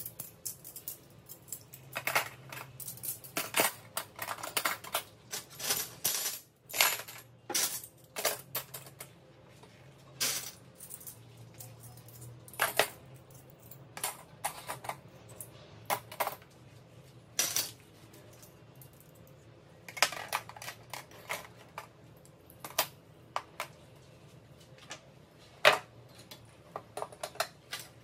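Stainless steel cutlery (forks, spoons, knives, chopsticks) clinking and clattering as handfuls are set down into a plastic drawer organiser tray, in irregular clusters of sharp clinks.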